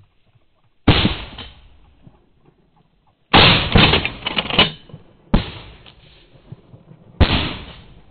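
Pump shotguns firing at a flushed rooster pheasant: four loud reports about two seconds apart, each trailing off briefly. The second report is followed by more cracks in quick succession.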